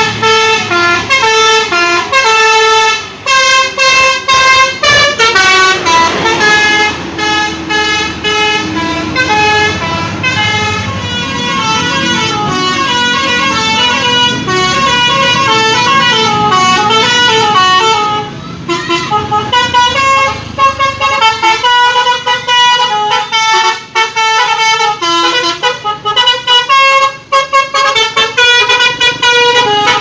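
Indonesian bus telolet Basuri horns playing quick melodic tunes, note after note with short breaks, over a bus engine running underneath.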